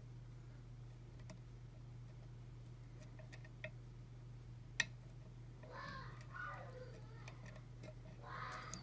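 Lock pick working the pins inside a pin-tumbler lock cylinder under tension: faint scattered clicks and ticks, with one sharper click about five seconds in. A steady low hum runs underneath.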